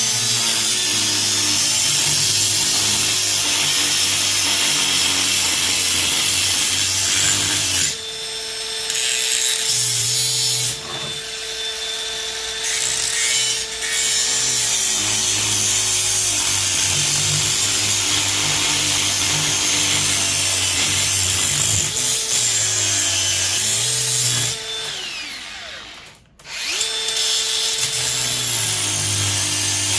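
An angle grinder with a cut-off wheel running and cutting into the aluminium-housed fan motor, a loud hissing whine whose pitch sags as the wheel bites. It eases off a few times and stops briefly about four seconds from the end before starting up again.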